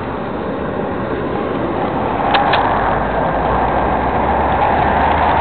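Steady road-traffic noise, a continuous rush with a low rumble building about halfway through, with a couple of faint clicks.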